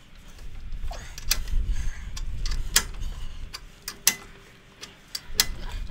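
Ball joint press being tightened to force a new lower ball joint into a Jeep Wrangler JK steering knuckle. Sharp metallic clicks, the loudest about every second and a half, over a low rumble.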